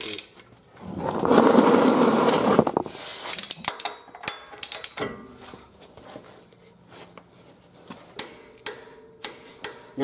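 Hand torque wrench ratcheting and clicking on the front axle hub nut of a Jeep Cherokee XJ as it is pulled up to 150. There is a loud rapid rattle from about a second in to nearly three seconds, then scattered sharp clicks and taps.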